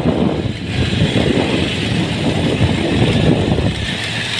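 Motorcycles running as they ride along together, a steady engine and road rumble.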